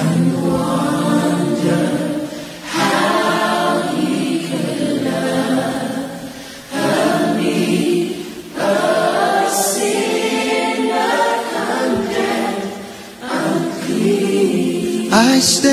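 A vocal group of women singing a gospel song in harmony, in long held phrases with short breaks for breath between them.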